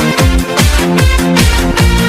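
Electronic dance music with a steady kick drum beating about twice a second under sustained synth chords.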